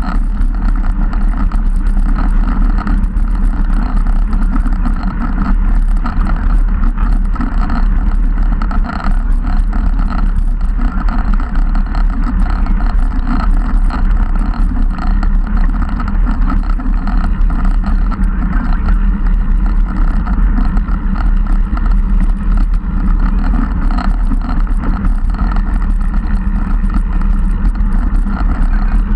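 Steady rush of riding wind buffeting a handlebar-mounted camera's microphone on a moving road bike, with a low rumble of tyres on the tarmac underneath.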